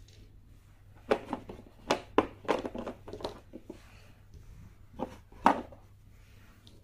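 Hand tools from a flaring and swaging kit being handled: a dozen or so scattered light knocks and clicks, the sharpest about five and a half seconds in.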